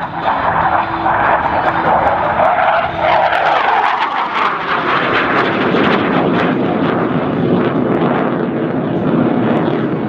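Jet noise from a BAE Hawk 127 trainer's single Adour turbofan as it passes: a loud, high roar drops in pitch about three to four seconds in as the aircraft goes by, then settles into a lower, steady rumble.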